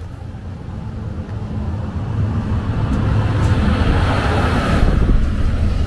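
NS Class 1700 electric locomotive passing close by, its rumble growing louder over the first few seconds as it arrives. A rushing noise is strongest as it goes past, about three to five seconds in.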